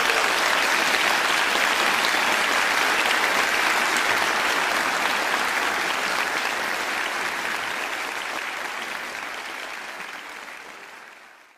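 Audience applauding, a steady even clatter of many hands that fades in the last few seconds and then cuts off.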